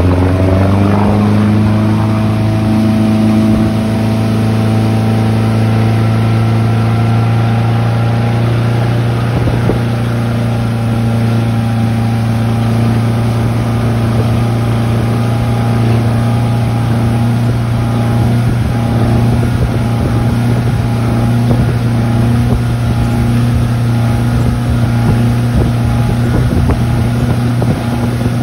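Motorboat engine speeding up, its pitch rising over about the first second, then running steadily at speed while towing an inflatable tube, with wind noise on the microphone.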